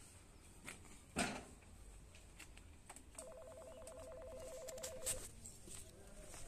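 A faint electronic two-note tone, rapidly pulsed, sounding for about two seconds in the second half. About a second in there is one sharp knock, the loudest sound.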